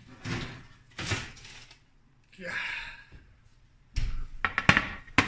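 Oven door being opened and a metal baking sheet pulled out off the rack, rustling and scraping. From about four seconds in, a cluster of clatters and knocks as the sheet is set down on the glass-ceramic stovetop, ending in a sharp click.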